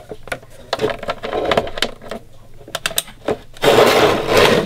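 Handling sounds of an Ethernet cable being plugged into the back of a router: a series of small plastic clicks and knocks, then about a second of louder rustling and scraping near the end as a hand moves over the router and its cables.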